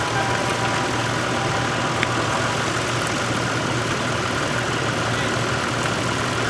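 Tractor engine running steadily, with a short click about two seconds in.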